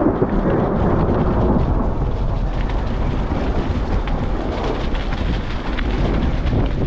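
Mountain bike descending a trail in rain and hail, heard from a handlebar-mounted GoPro: a steady low rumble of wind and riding noise, with many fine sharp ticks of rain and hail striking the camera and bike.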